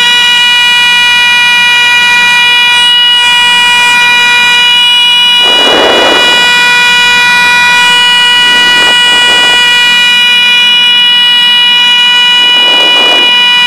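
Piper Seneca stall warning horn sounding continuously as one steady buzzing tone, the sign of the aircraft being flown on the edge of the stall in slow flight. A few brief muffled noises come over it, the biggest about halfway through.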